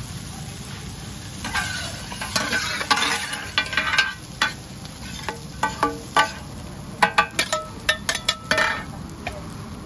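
Two metal spatulas scraping and clanking against a large flat round pan as pad thai noodles and bean sprouts are stir-fried and tossed, over a steady frying sizzle. The clanks come in irregular runs from about a second and a half in, some of them ringing briefly.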